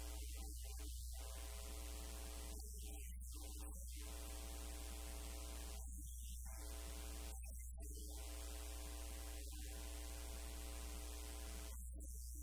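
Steady electrical mains hum with a low hiss, unchanging throughout.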